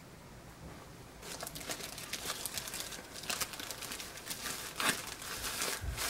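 Clear plastic zip-top bag crinkling and crackling as a handful of wool fibre is handled and pushed into it, starting about a second in.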